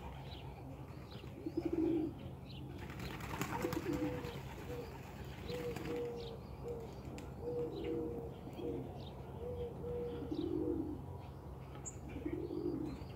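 Young racing pigeons cooing, short low calls repeating about once a second, with a burst of wing flapping about three seconds in.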